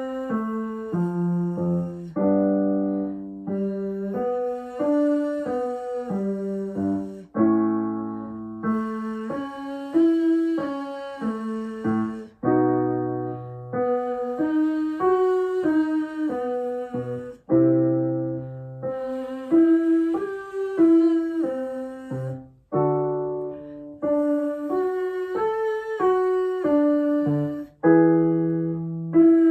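Piano playing a vocal warm-up of short up-and-down triad arpeggios (root, third, fifth), a new pattern every couple of seconds, each starting on a different note.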